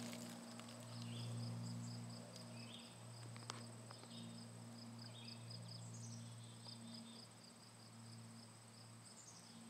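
A cricket chirping steadily, about four high chirps a second, over a low steady hum.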